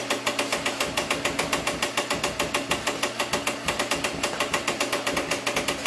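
Nerf Rival Prometheus blaster firing full-auto: its motors run with a steady hum while it fires foam balls in an unbroken stream of sharp, even clacks, about eight shots a second.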